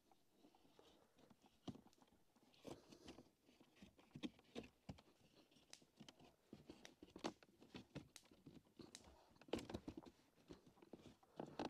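Faint, irregular clicks and rustles of a bent wooden canoe rib being handled and pressed into place against the canoe's wooden sheathing.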